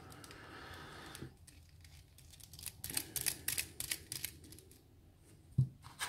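Small metal clicks, scrapes and knocks from an Abus 72/40 padlock and a lock pick being handled as the freshly picked lock is turned and its shackle opened. A scraping rasp in the first second, a quick run of clicks a few seconds in, and one louder knock near the end.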